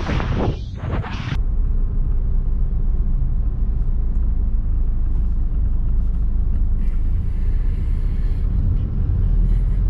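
Wind buffeting the microphone cuts off abruptly about a second in. It gives way to the steady low rumble of engine and road noise inside a moving Chevrolet's cabin.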